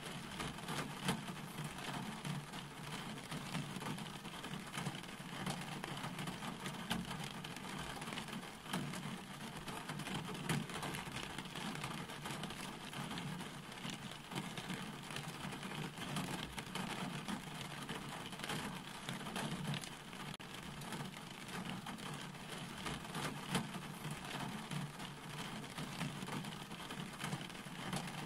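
Steady rain falling on a wet road and fallen leaves, with many individual drop ticks over a steady low hum.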